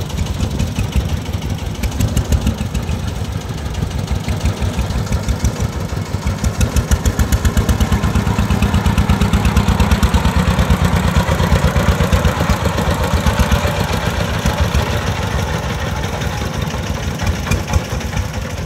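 Single-cylinder diesel engine of a công nông three-wheeled farm dump truck chugging as it drives, with a rapid, even beat. It is loudest in the middle stretch.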